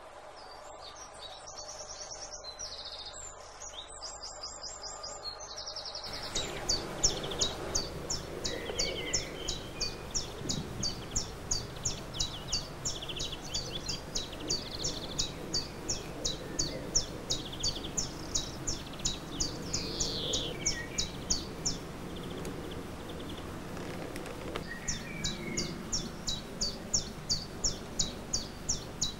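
Birds singing over a steady outdoor background. One bird repeats a short high chirp about twice a second, pausing briefly before starting again near the end, with other calls and trills among it.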